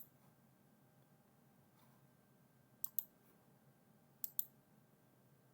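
Computer mouse clicking: one faint click, then two quick double-clicks a second or so apart, over a quiet room.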